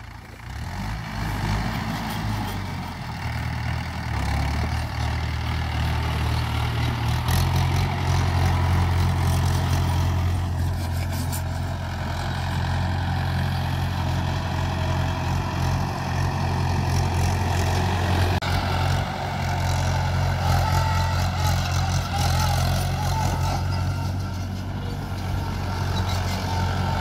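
Mahindra farm tractor's diesel engine running steadily as the tractor drives over dried plants to thresh them; the engine note rises and grows louder about seven seconds in.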